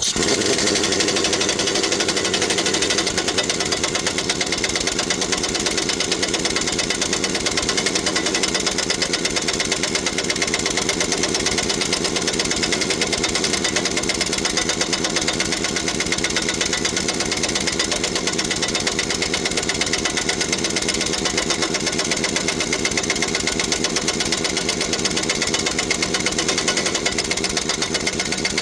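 Impact wrench hammering steadily and rapidly as it runs down the new pinion nut on the differential's yoke, tightening it after the pinion seal replacement.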